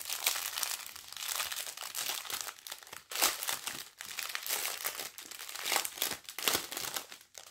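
Plastic packaging of a diamond painting kit crinkling and rustling as it is handled, with louder crackles about three seconds and about six seconds in.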